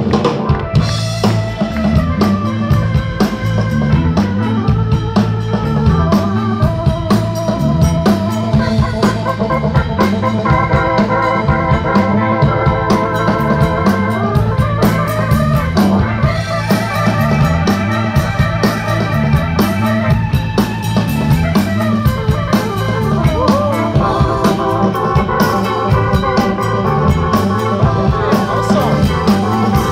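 Live rock band playing an instrumental passage, with organ and guitar over a steady bass line and drum kit.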